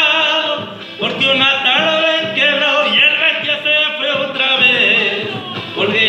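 A man singing a Spanish-language ballad, drawing out wavering notes.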